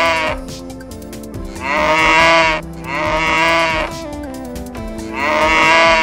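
Cow mooing in drawn-out calls of about a second each. One call ends just after the start and three more follow, the last running into the end. Background music with steady held notes plays underneath.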